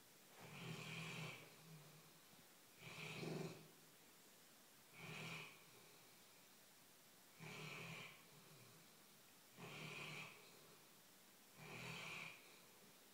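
Sleeping dog snoring in a steady rhythm: six snores about two seconds apart, each a low buzzing rasp with a breathy hiss.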